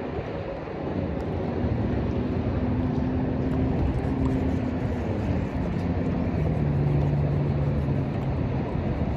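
A distant motor drones over a steady low rumble of wind on the microphone. Its pitch falls over the second half, as when a passing engine goes by.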